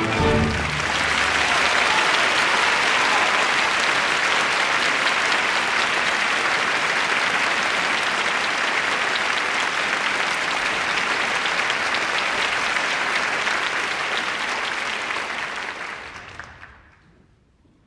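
The orchestra's last note dies away, then a large theatre audience applauds steadily. The applause fades away about sixteen seconds in.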